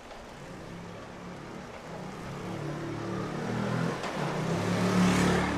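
Small motor scooter engine approaching and passing close by, growing louder to its peak with a brief tyre hiss near the end.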